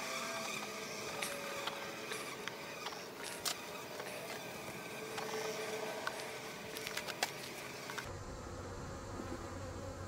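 A colony of honey bees buzzing steadily around an open hive, with a few light clicks and knocks as wooden frames are pushed back together. About two seconds before the end the sound shifts to a duller, lower hum.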